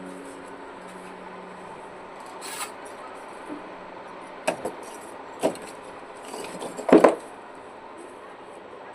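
Construction work noise: a few irregular knocks and scrapes over a steady background hiss, the loudest knock about seven seconds in.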